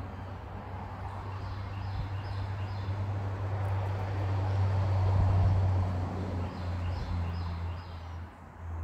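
Outdoor ambience: a low engine hum from a passing vehicle swells to its loudest about halfway through and then fades. Over it a bird gives two short runs of high chirps.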